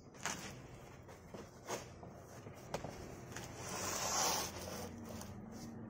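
Large corrugated cardboard box being handled: a few light knocks and taps, with a longer scraping rustle of cardboard about four seconds in, the loudest part.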